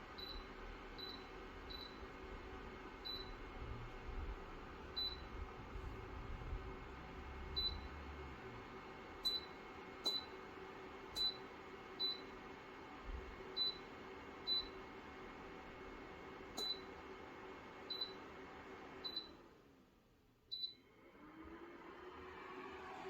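Electric fan heater running with a steady hum while short, high beeps sound every half second to a second, like a control panel or remote being pressed. Near the end the hum cuts out, then the fan spins back up with a rising whine.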